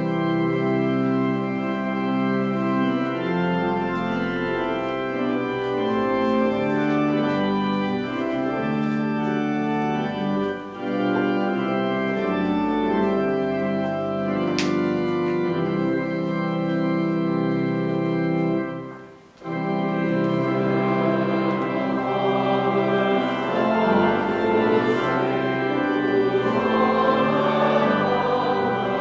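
Church organ playing slow, sustained chords, with a brief pause about 19 seconds in before it comes back with a fuller, slightly louder sound.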